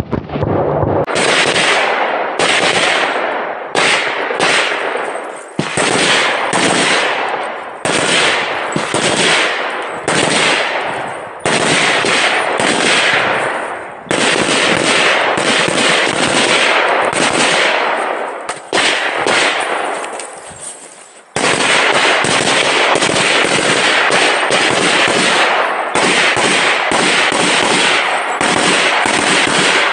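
Daniel Defense MK18 short-barrelled 5.56 mm rifle firing rapid strings of shots, each shot trailing off in echo. The firing stops briefly a few times, about 1, 5, 14 and 21 seconds in, and then goes on.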